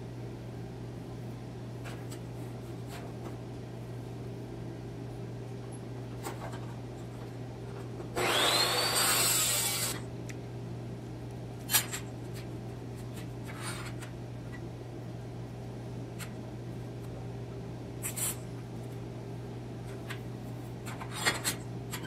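A metal-cutting power tool spins up with a rising whine, runs for about two seconds and stops. A few short, sharp knocks of steel tubing being handled on a steel table follow, over a steady low shop hum.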